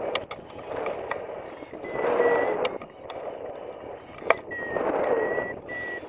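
Wind rushing over the camera microphone on a flying hang glider, swelling and fading in surges every couple of seconds. There are a few sharp clicks, the loudest about four seconds in, and a faint thin tone that comes and goes.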